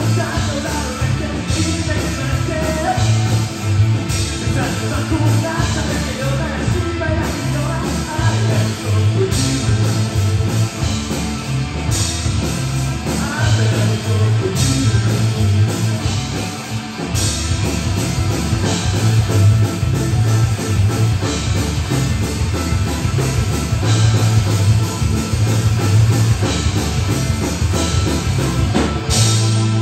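Live rock band playing: two electric guitars, bass guitar and drum kit, with a male lead vocal. Near the end the band closes on a cymbal crash and a ringing chord.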